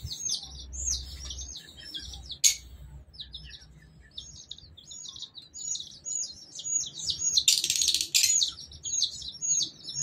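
A brood of young chicks peeping continuously in short, high, falling chirps. There is a sharp click about two and a half seconds in and a brief rustle near eight seconds.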